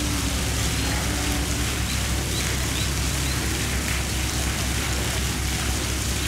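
Steady rushing noise with a constant low hum underneath, and a few faint, short, high rising chirps in the first half.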